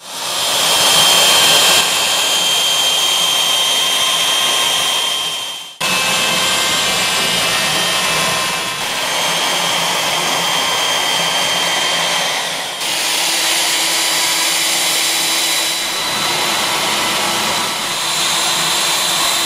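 CNC router's spindle motor running at high speed with a steady whine, its bit cutting a propeller blade out of MDF. The sound changes suddenly about six seconds in and again near thirteen seconds.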